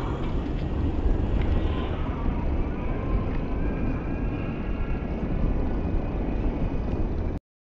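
Wind and road rumble on a bike-mounted GoPro microphone while riding an electric bike: a steady low rushing noise that cuts off abruptly near the end.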